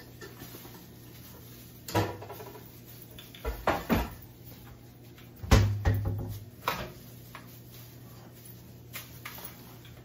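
A handful of separate knocks and clatters of kitchen things being handled, the loudest about five and a half seconds in, over a low steady hum.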